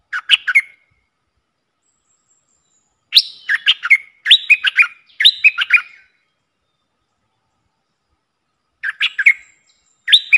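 Stripe-throated bulbul singing: short bubbling phrases of quick notes, one right at the start, three in a row from about three to six seconds in, and another two near the end, with silent gaps between.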